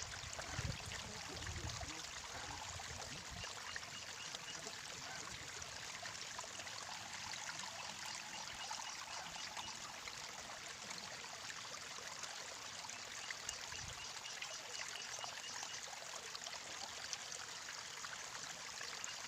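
Steady trickle of running water, with a few soft low bumps near the start.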